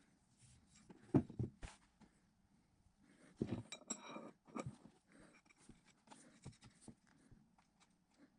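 Light metallic clicks, taps and scraping as a steel drill press spindle is handled and a collar is slid along it on a workbench. The loudest knock comes about a second in, and a brief high metallic ring sounds near the middle.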